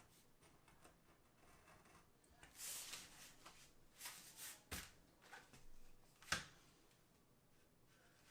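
Faint rustling and scraping of a peel-and-stick tile sheet being handled and cut, with two sharp clicks, the louder one about six seconds in.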